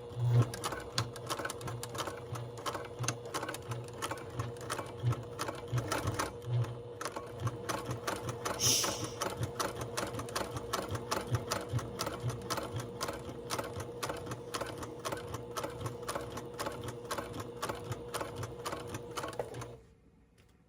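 Electric sewing machine stitching steadily through a zipper, its needle tapping at a fast, even rate over the motor hum, then stopping about a second before the end. The sewer doesn't like the sound and takes it for the stitch not catching.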